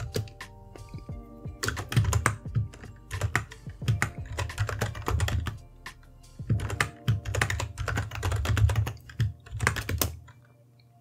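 Typing on a computer keyboard in several quick bursts of keystrokes, stopping about a second before the end, over soft background music.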